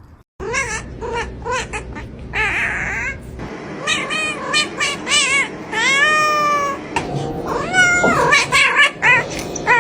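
Domestic cat meowing over and over: a quick run of short, high mews, then longer drawn-out meows that rise and fall in pitch.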